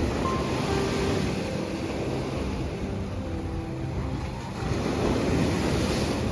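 Sea surf rolling in and washing onto the shore, with a wave surging up louder about four and a half seconds in. Soft background music with sparse held notes plays over it.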